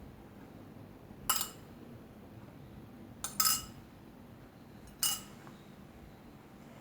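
Cutlery clinking against a dish four times: one sharp ringing clink, then two in quick succession, then one more.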